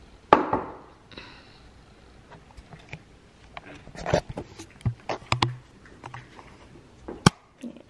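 Handling noise from a handheld camera being moved about, with rustling and scattered clicks, a loud knock about a third of a second in and a sharp click near the end.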